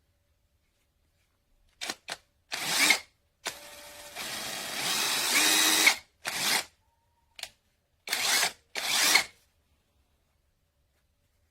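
Power tool run in a series of short trigger bursts. Its motor spins up and stops again, with one longer run of about two and a half seconds that grows louder partway through.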